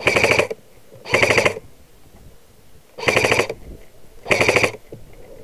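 Electric airsoft rifle firing four short full-auto bursts, each a rapid buzzing rattle of about half a second.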